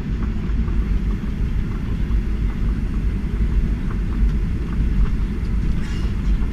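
Steady low rumble inside the passenger cabin of a Boeing 737-800 taxiing, from its CFM56 engines at low thrust and its wheels rolling on the taxiway, with a few faint clicks.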